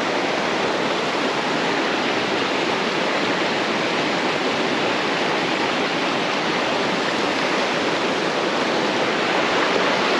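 Fast-flowing stream water rushing steadily, a continuous even hiss.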